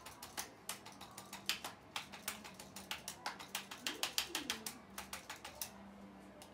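ArthroStim handheld electric adjusting instrument firing a rapid run of sharp clicking taps, about four or five a second, as it delivers a chiropractic adjustment to the pelvis; the taps stop shortly before the end.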